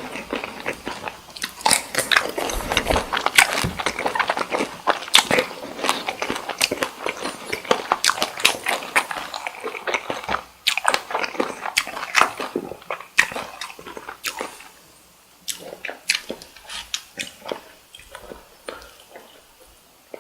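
Close-miked chewing and biting of cooked cocktail shrimp: a dense run of quick, sharp mouth clicks and smacks, thinning to fewer, separate ones in the last few seconds.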